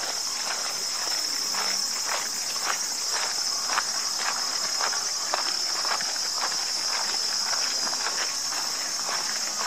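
Footsteps on a gravel path, about two steps a second, over a steady high-pitched chorus of insects.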